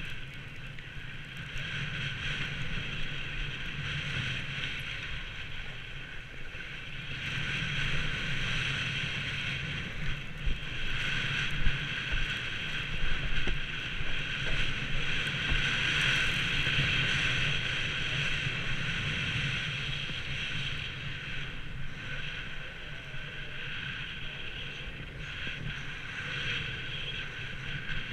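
Steady hiss of a ski bike's skis sliding over groomed snow at speed, mixed with wind rushing over the microphone. A few short, louder knocks come around the middle, as over bumps.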